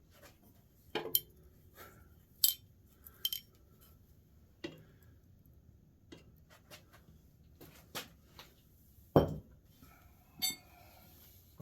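Metal tools and engine parts clinking and clanking during an engine teardown: scattered sharp metallic knocks with a short ring, about eight of them at irregular spacing, the loudest about nine seconds in.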